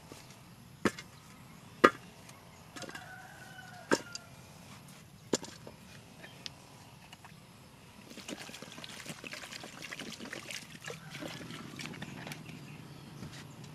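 Green bananas dropped one by one into a steel cooking pot, a handful of sharp clunks. Then water poured from a plastic bottle into the pot, a steady splashing for several seconds.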